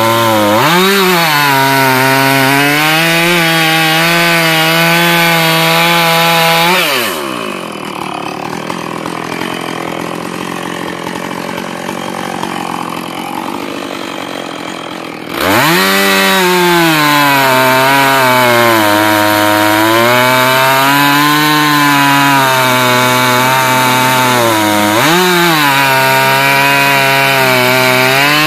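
Husqvarna 450 two-stroke chainsaw cutting through a log at full throttle, its pitch sagging and recovering as the chain bites into the wood. About seven seconds in it drops to idle, then about eight seconds later it revs back up into the next cut, with another brief dip and climb near the end.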